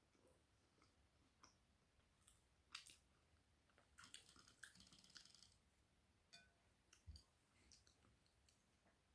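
Faint, close-up mouth sounds of someone eating flatbread: scattered sharp little clicks and smacks of chewing, with a short crackly stretch near the middle.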